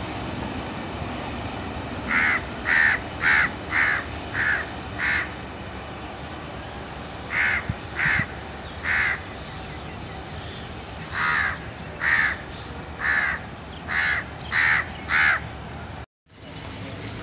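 A crow cawing over and over: a run of six short caws, then three, then six more, over a steady low rumble.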